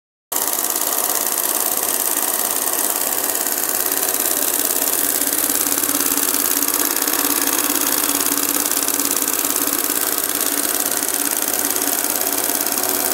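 Hand-guided embroidery machine stitching gold cord onto fabric: a steady, rapid mechanical chatter from the needle head running at speed, starting a moment in.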